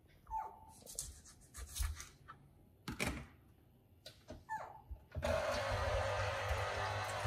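Small electric citrus juicer switching on about five seconds in and whirring steadily with a low hum as a citrus half is pressed onto its spinning reamer cone. Before it, a few light knocks and short squeaks.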